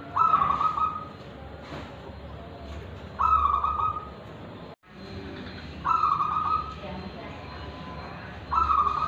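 Caged zebra dove (perkutut) cooing: four coo phrases, each just under a second long, repeated every two to three seconds, in the clear bright voice fanciers call 'kristal'.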